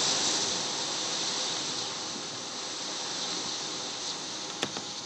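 Hurricane wind gusting through trees: a steady rushing hiss that is strongest at the start and eases a little. One sharp click near the end.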